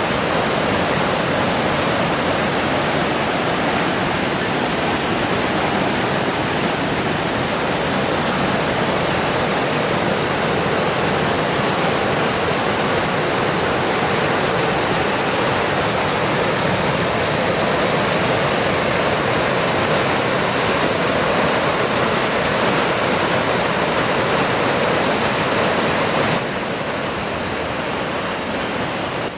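Floodwater in a storm-swollen creek rushing past fast, a loud, steady rush of water that drops a little in level a few seconds before the end.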